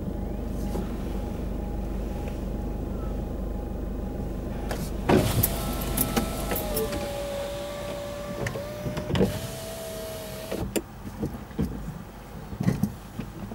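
A car's electric window winding down: a steady motor whine of about five seconds, starting and ending with a clunk, the pitch lifting a little just before it stops. Under it and before it, the engine of the stationary car idles, heard from inside the cabin.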